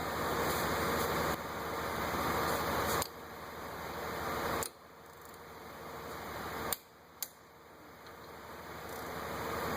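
A wrench tightening brake caliper bolts: stretches of rasping noise that each stop abruptly, then two sharp clicks about seven seconds in.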